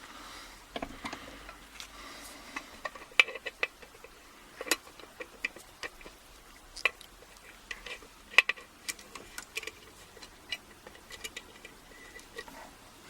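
Irregular small clicks and metallic knocks as a padlock is handled and clamped into a bench vise.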